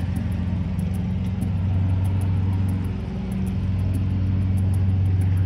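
Engine of grounds-maintenance machinery running steadily with a low, even hum. A faint fast ticking sits above it.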